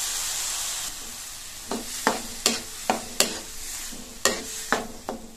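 Milk hissing as it sizzles in a hot nonstick pan of fried banana, semolina and grated coconut; the hiss dies down about a second in. Then a spatula stirs the mixture, scraping and knocking against the pan about eight times.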